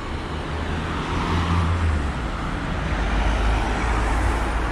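City road traffic: cars driving past with engine rumble and tyre noise, growing louder over the first couple of seconds.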